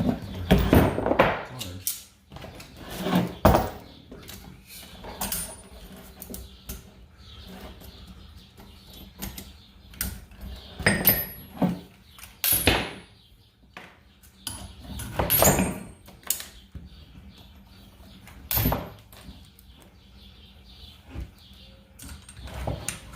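Irregular metallic clanks, knocks and clatters of tools and sockets being handled and set down, with several louder bursts lasting about a second.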